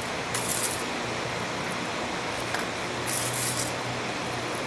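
Dry sand flux sprinkled by hand onto a red-hot folded steel billet: short gritty hisses a couple of seconds apart over a steady background rush.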